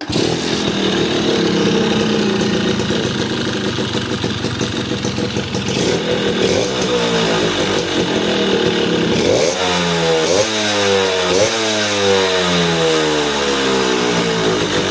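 Suzuki Tornado motorcycle engine starting straight away and idling, then blipped three times in quick rising-and-falling revs about two-thirds of the way in, settling back toward idle. It runs smoothly and starts at once after servicing.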